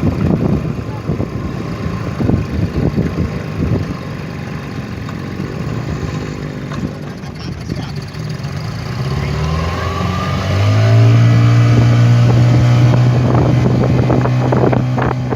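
Two-stroke speedboat engine converted to run on LPG, first heard under a choppy rushing noise. About nine seconds in it revs up and then holds a steady, loud high speed.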